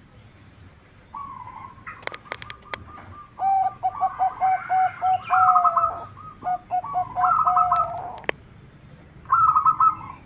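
Zebra doves (perkutut) cooing in quick runs of short, evenly spaced notes, with higher chirping notes over them. A few sharp clicks sound about two seconds in, and one more near eight seconds.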